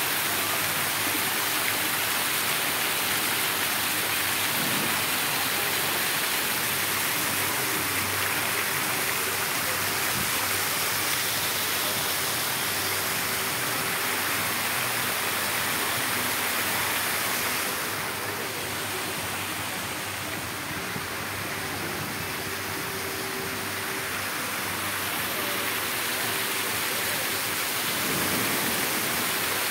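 Water pouring from a mushroom-shaped pool shower fountain and splashing onto the pool surface. It is a steady rushing splash that softens for several seconds past the middle.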